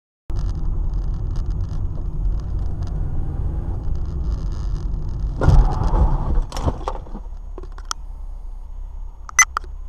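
Steady low rumble of a car driving, engine and road noise heard inside the cabin, cutting in suddenly just after the start. It swells briefly about halfway through, then a few sharp clicks and knocks come near the end.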